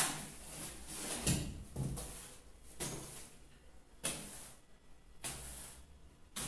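Short scraping and sliding sounds of floor tiles and their cardboard boxes being handled on a bare concrete floor: about six separate strokes, roughly a second apart, the loudest at the very start.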